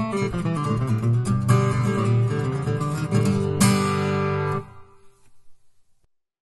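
Instrumental music led by a strummed acoustic guitar, ending on a final chord about three and a half seconds in; it cuts off a second later and dies away.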